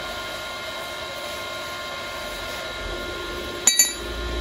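A steady mechanical drone runs underneath. Near the end comes a double metallic clank with a brief ring: the welded steel pipe-and-can burner being set down on the concrete floor.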